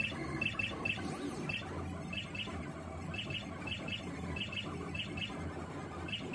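Stepper motors of a homemade MPCNC (grblHAL controller, TB6600 drivers) whirring and buzzing in quick, changing strokes as the pen head travels and bobs up and down, writing small lettering, over a steady low hum.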